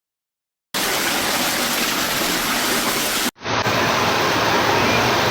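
Loud, steady rush of fast-flowing floodwater, starting abruptly about a second in, breaking off for a moment a little past three seconds and then carrying on.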